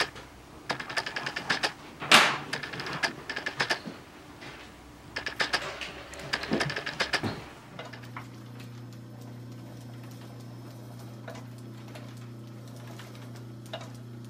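Industrial sewing machine stitching in several short runs of rapid rattling clicks, each a second or two long. About eight seconds in this gives way to a steady low electric hum from the American Straight Needle boot sewing machine's motor running.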